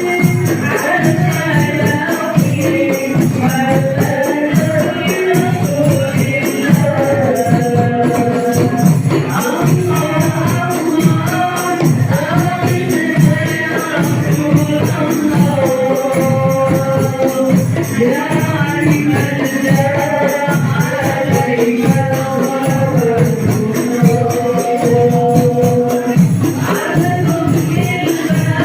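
Hadroh ensemble playing through a sound system: voices singing a melody together over a steady, dense beat of rebana frame drums.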